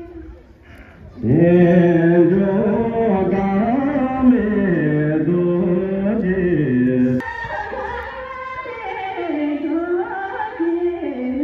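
Tibetan folk song sung for a group dance: a lower voice sings a long, drawn-out line starting about a second in, and a higher voice takes over the melody about seven seconds in.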